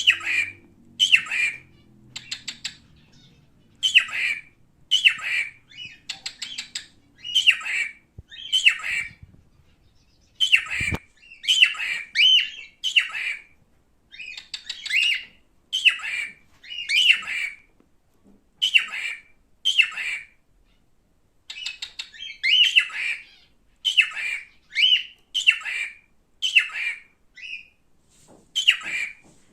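Male cockatiel calling over and over, short harsh calls about one a second, some broken into quick stuttering notes.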